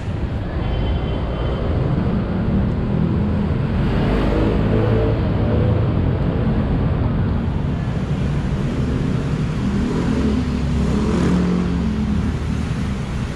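City street traffic: motor vehicle engines running and passing close by, loudest around four to six seconds in and again around ten to twelve seconds in.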